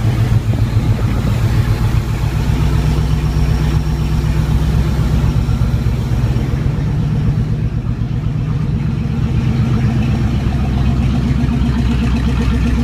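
Ford Ranger's swapped-in 5.0-litre V8 idling steadily, with a low, even firing pulse.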